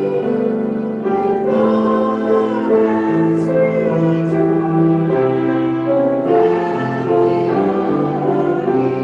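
Congregation singing a slow song together in held notes, with musical accompaniment.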